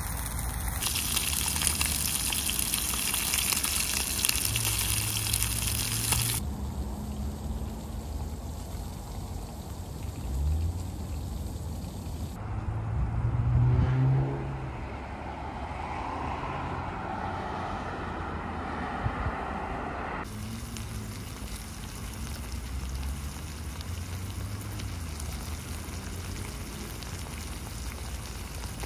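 Road traffic on a busy roundabout: a continuous hiss of tyres, with one vehicle passing louder about halfway through.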